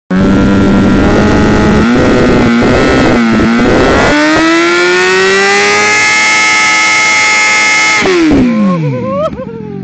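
Suzuki sport motorcycle doing a burnout: the engine held at high revs with the rear tyre spinning on the paving, the revs climbing about four seconds in and holding, then dropping away quickly about eight seconds in as the throttle is closed.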